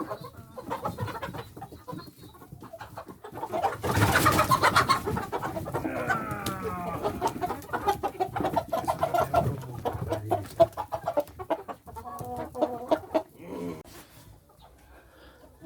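Chickens squawking and clucking while one is being caught from the flock for slaughter. About four seconds in there is a loud flurry, followed by falling squawks and a run of repeated clucks.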